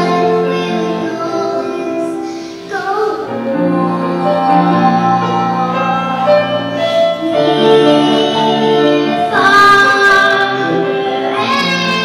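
A young girl singing a song into a microphone, accompanied on a Steinway D-274 concert grand piano.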